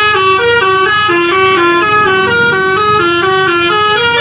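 Coach bus's multi-tone musical air horn of the Indonesian 'telolet' kind, playing a quick tune of stepped notes, each held a fraction of a second.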